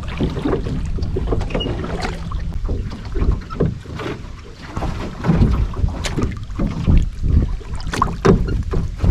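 Irregular knocks and bumps from a small fishing boat on the water, with wind rumbling on the microphone.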